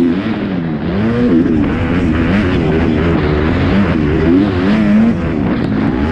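Onboard sound of a Kawasaki motocross bike's four-stroke single-cylinder engine racing over a rutted track, its pitch rising and falling again and again as the rider works the throttle and gears.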